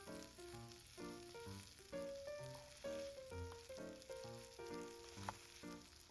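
Food sizzling as it fries in a pan, a steady hiss, under light background music with a melody and a regular bass pulse.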